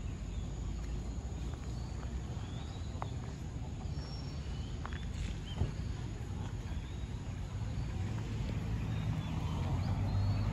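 Roadside ambience: a low steady rumble with a few faint, short bird chirps. Near the end a vehicle's engine grows louder as it approaches.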